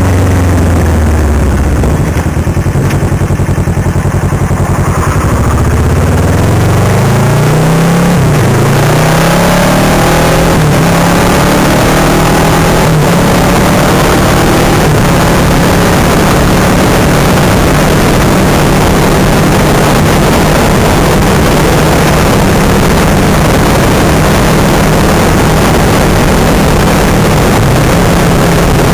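Kawasaki Versys 650 motorcycle's parallel-twin engine accelerating, its pitch rising and dropping back at a couple of gear changes in the first several seconds. It then holds a steady cruise under rushing wind noise.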